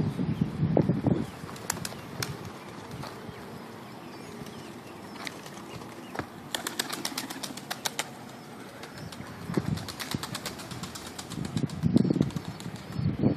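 Turkish tumbler pigeons' wings flapping, with a quick clatter of about ten wing beats a second in the middle as a bird takes off. A low rumble comes and goes at the start and near the end.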